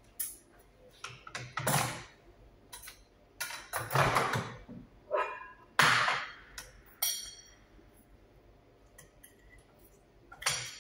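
Kitchen handling noises: a scatter of clicks and knocks, with short scraping, rustling bursts that are loudest about two, four and six seconds in.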